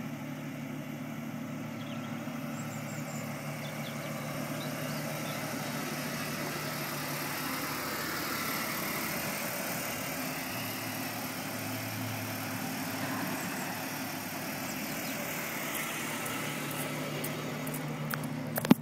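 1994 Ford Mustang's 3.8-litre V6 idling steadily through a custom dual stainless-steel exhaust. A single sharp knock near the end.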